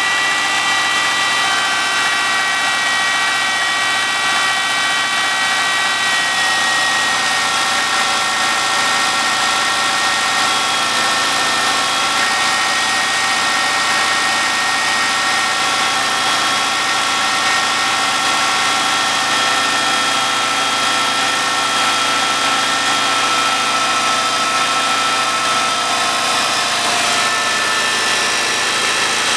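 Subaru Forester's flat-four boxer engine idling steadily from a cold start, with the knock the owner takes for piston slap on a cold engine. The idle pitch settles slightly lower about six seconds in.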